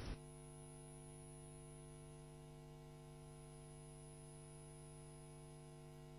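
Near silence: a faint, steady electrical hum with a stack of even overtones.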